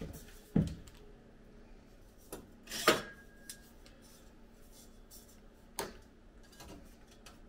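Curved thin sheet-steel panel knocking and scraping against the steel dashboard and cab as it is offered up for a trial fit: a few separate metallic clanks, the loudest about three seconds in, ringing briefly.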